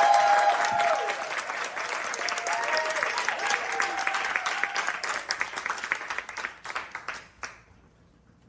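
Audience applauding, the clapping dying away about seven and a half seconds in.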